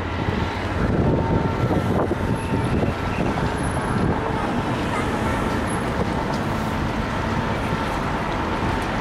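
Steady road traffic noise of passing cars.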